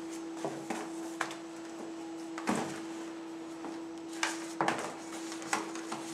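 Handling noise from assembling a softbox: nylon fabric rustling and a few scattered light knocks as the softbox's rear sleeve is opened and a white plastic multi-lamp light bank is set into it, over a steady hum.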